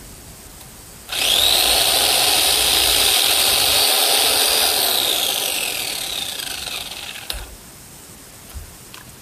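Electric chainsaw motor and chain starting suddenly about a second in and running at a steady high whine for about four seconds, then falling in pitch as it winds down and stopping with a click.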